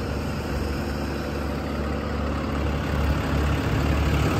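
Cummins 6.7-litre turbo diesel in a Ram 5500 idling steadily, a low even rumble that grows a little louder near the end.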